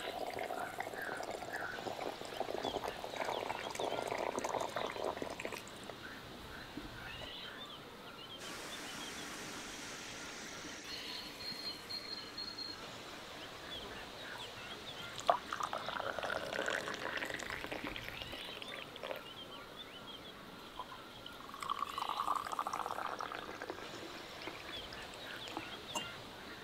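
Water being poured into a glass teapot over herbs and flowers, and later herbal tea poured from the teapot into a pear-shaped tea glass, with the splashing and trickling of the liquid.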